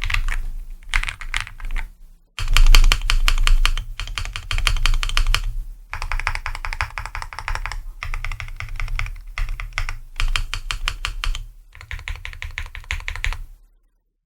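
Typing on a mechanical keyboard fitted with Akko Creamy Yellow Pro V3 linear switches: fast runs of keystrokes in several bursts with short pauses, stopping just before the end.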